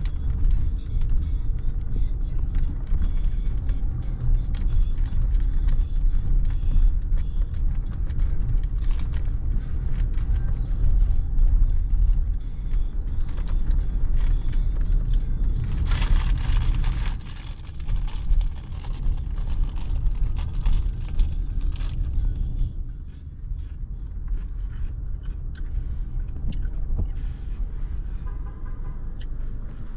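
Inside a car driving slowly on wet city streets in the rain: a steady low rumble of the car and its tyres on the wet road, with scattered light ticks. There is a short burst of hiss about halfway through, and the rumble drops in the last quarter as the car comes to a stop behind traffic.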